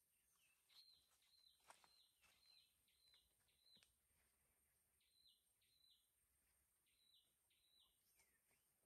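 Faint bird calls: a series of short, high chirps, each stepping down in pitch, repeated about twice a second in a run of seven and then in pairs, with a few faint clicks among them.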